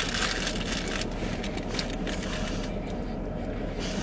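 Steady low rumble of a running car heard from inside the cabin, with paper and wrapper crinkling in the first second or two.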